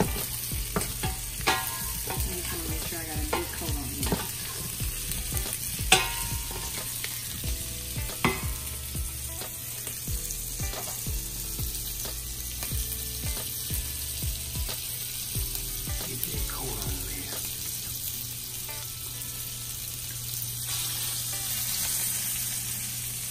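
Potato wedges sizzling in hot duck fat in a stainless steel pot, with a wooden spoon and the potatoes knocking against the pot as they are tossed to coat, the knocks frequent in the first several seconds and then thinning out. A steady sizzle continues and swells a little near the end.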